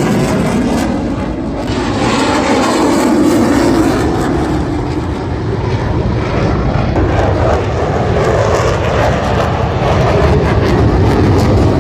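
F-35 fighter jet's single turbofan engine, a loud, steady jet roar with a deep rumble.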